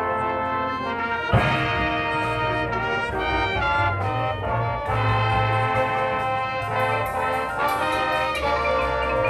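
A high school marching band's brass section playing sustained chords over a deep low part, with one sharp percussion hit about a second in.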